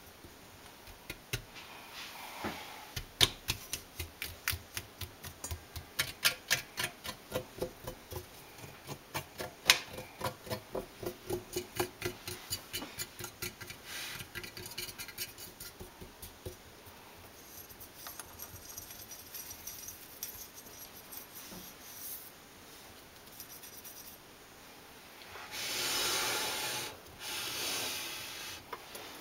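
Fingers tapping and clicking on the metal body of a KitchenAid Ultra Power stand mixer, with the mixer switched off: a quick, uneven run of taps, about two to three a second, that thins out to light ticking. Near the end come two louder rubbing, scraping strokes.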